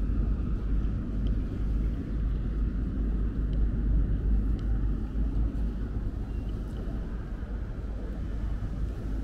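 Outdoor ambience dominated by a low, fluctuating rumble.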